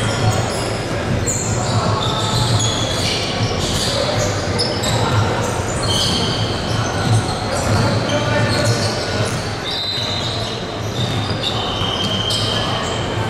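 Indoor basketball game in play: the ball bouncing on the court and many short, high sneaker squeaks on the floor, over a steady low hum and the voices of players and crowd.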